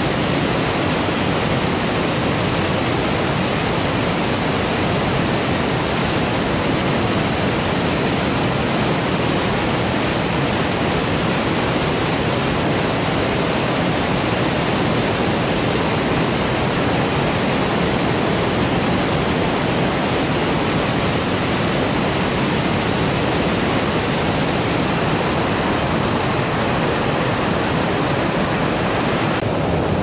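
Tall mountain waterfall plunging onto rocks: a loud, steady rush of falling water. The tone shifts slightly near the end.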